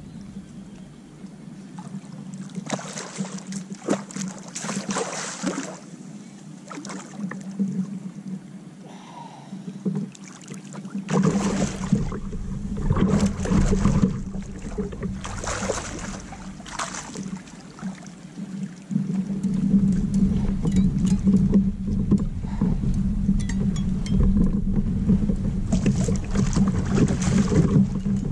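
A hooked catfish thrashing and splashing at the water's surface beside a kayak: repeated short splashes, irregularly spaced, over a steady low hum, with a low rumble joining from about the middle on.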